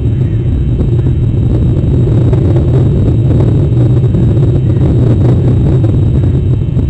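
Loud, steady low rumble of wind buffeting an outdoor nest-cam microphone.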